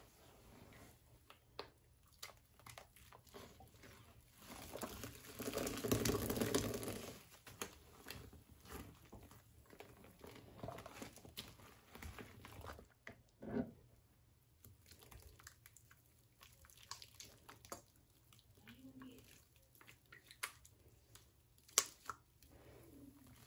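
Faint rustling and crinkling handling noises with scattered small clicks, over a low steady hum. A louder rustle lasts about two seconds, starting a little over four seconds in.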